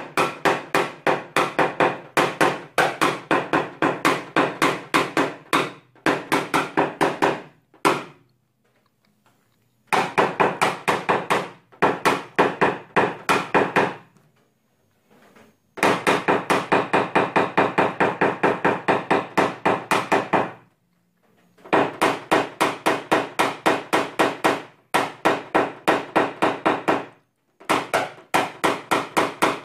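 A paintless dent repair knockdown punch tapped against a Toyota Camry's steel trunk lid in fast, even strikes, about five a second, each with a short metallic ring, knocking down hail-damaged metal. The tapping stops briefly four times.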